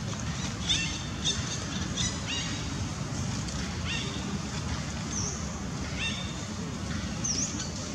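Birds chirping: short upward-sweeping calls scattered through, with a couple of higher, quicker sweeps near the end, over a steady low rumble.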